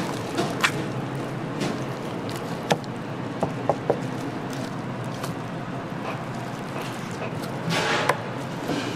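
Kitchen work sounds: a steady background hiss with scattered sharp clicks and light knocks of utensils, and a short louder rush of noise about eight seconds in.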